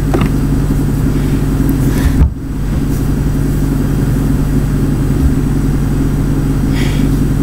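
A loud, steady low droning hum that holds one unchanging pitch, with a brief dropout about two seconds in.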